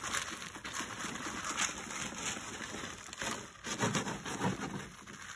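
Used poultry litter of wood shavings and droppings being poured out of a wheelbarrow, making a dense crackling patter.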